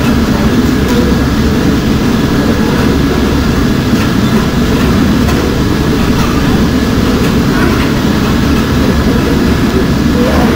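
Factory machinery running with a steady, loud rumble that does not change.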